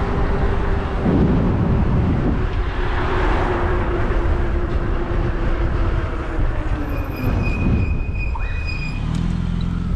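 Wind rushing over the microphone on a moving e-bike, with a steady motor whine that sinks slightly and fades. A thin, high squeal sounds for about two seconds near the end.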